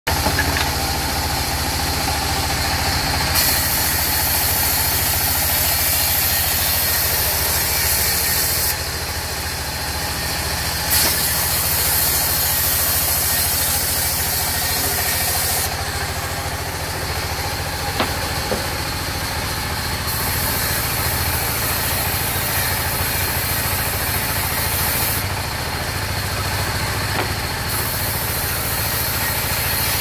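A sawmill's log band saw running, with a steady low drone from its drive. A high hiss comes and goes in spells of several seconds as the blade works through the timber, and there is a single sharp click partway through.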